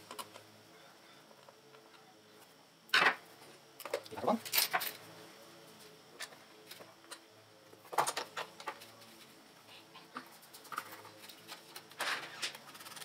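Handling noise while screwing motors onto a watch winder's panel: a few scattered clicks and knocks as the panel, small screws and a screwdriver are moved and set down on a table, the loudest about three seconds in, with others near four to five, eight and twelve seconds in.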